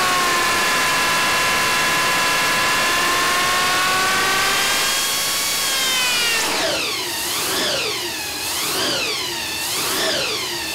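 Engine running through a Holley four-barrel carburetor, held at high revs for about five seconds. It then dips and is revved up and down in quick, repeated blips a little more than once a second.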